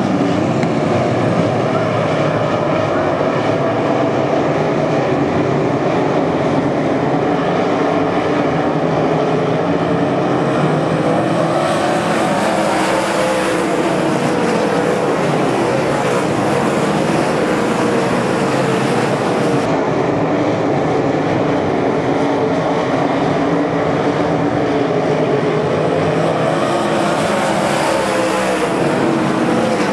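Several dirt-track race cars running at speed, their engines at high revs, with the pitch rising and falling as they go through the turns.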